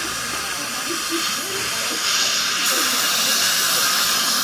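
Steady airy hiss from dental equipment during a tooth restoration. It grows louder and brighter about two seconds in.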